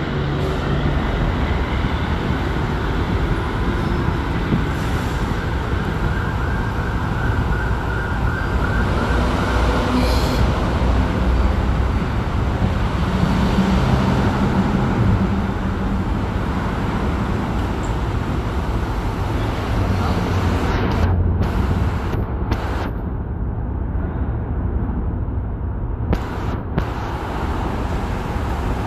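Steady rumble of idling vehicles and traffic on a highway, with an emergency siren warbling, clearest from about five to ten seconds in.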